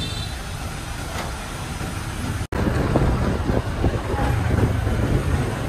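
Truck engine and street traffic running steadily. The sound cuts out for an instant about two and a half seconds in, then comes back as riding along behind the truck: a heavier engine and road rumble with wind buffeting the microphone.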